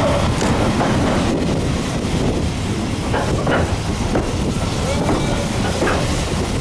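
Running rumble of a railway carriage in a steam-hauled train, heard from aboard, with a few knocks and clicks of the wheels on the track a few seconds in.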